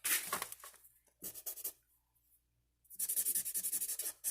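Scribbling hard on paper, scratching out written text with rapid back-and-forth strokes in three bursts, the last and longest starting about three seconds in.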